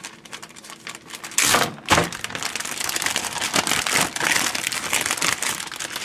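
Zip-top plastic storage bag crinkling and rustling as it is pulled open by hand. It gets louder about a second and a half in, with a couple of sharp crackles.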